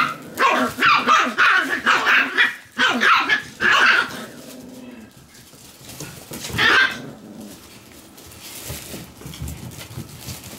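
Shiba Inu puppies barking while they play-fight: a quick run of yappy barks over the first four seconds, then one more bark about seven seconds in.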